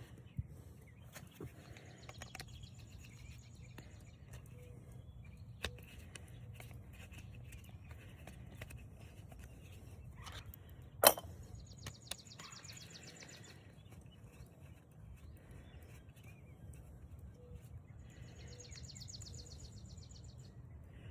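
Small clicks and taps of metal parts being handled during a frost-free faucet seal washer replacement, with one sharp loud click about 11 seconds in. A bird's fast high trill comes three times in the background over a steady low outdoor rumble.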